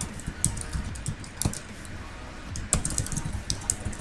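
Computer keyboard being typed on: irregular key clicks, with a couple of sharper, louder keystrokes.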